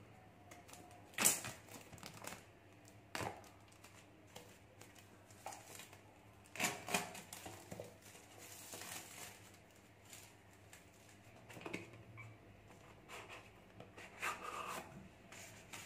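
Clear plastic shrink-wrap being torn and peeled off a cardboard box, crinkling and crackling in irregular bursts.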